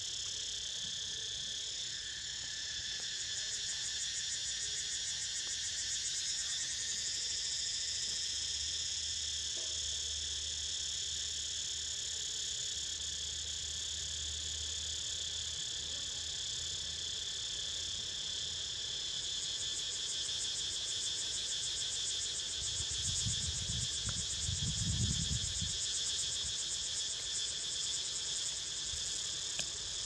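Cicadas calling in a steady, high-pitched chorus, swelling into a fast pulsing buzz a few seconds in and again through the second half. A low rumble comes in briefly near the end.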